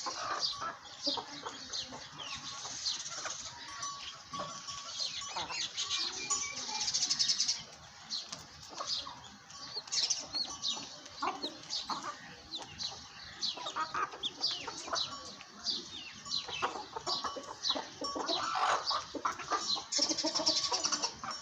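Many birds chirping and calling over one another in a dense, continuous chorus of short high calls.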